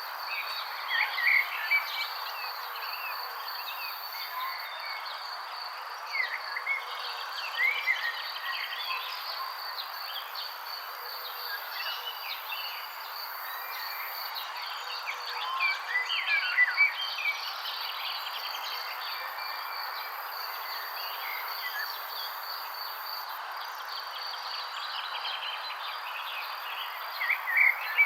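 Birds chirping in many short, scattered calls, with louder clusters of chirps about a second in, a quarter of the way through, past the middle and near the end, over a steady high insect trill and a soft background hiss.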